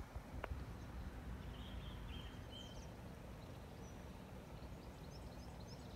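Quiet open-air background: a steady low rumble with faint, scattered bird chirps, and one light click about half a second in.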